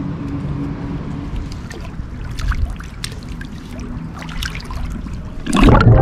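Water sloshing and trickling around bare feet stepping down a ladder into shallow sea, over a steady low hum. About five and a half seconds in comes a loud, sudden splash and rush of bubbles as the camera plunges underwater.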